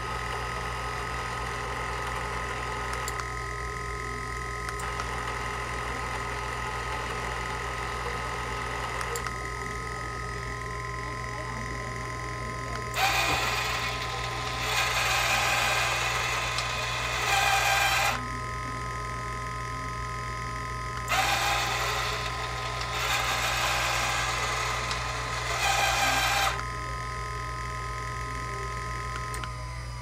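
Lobster Elite tennis ball machine running, its electric motors giving a steady whine. Twice, a louder rough mechanical noise starts suddenly, runs for about five seconds and cuts off. Near the end the whine begins to fall in pitch.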